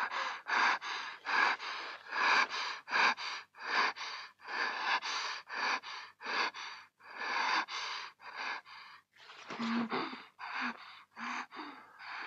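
A person gasping and panting heavily, with quick ragged breaths about two a second. A few of the breaths near the end are voiced, as short low moans.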